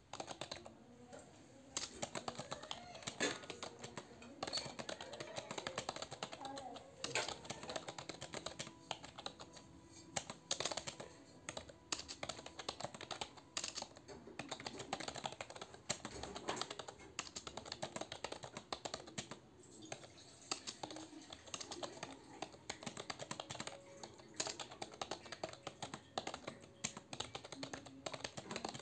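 Fast touch-typing on a computer keyboard: a dense, continuous patter of keystrokes in bursts, with brief pauses between runs.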